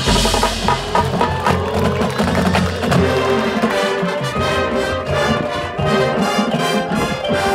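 Marching band playing, brass and percussion together. It opens on a loud hit with a low boom, the brass slides upward in pitch over the next couple of seconds, then a run of sharp percussion strokes follows near the end.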